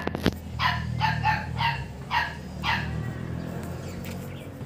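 A dog barking, about six barks at roughly two a second, stopping about two and a half seconds in. Two sharp clicks at the very start, over a steady low hum.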